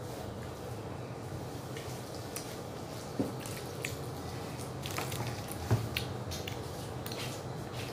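A child chewing a snack close to the microphone: wet mouth sounds with a few small clicks and smacks, over a steady low hum.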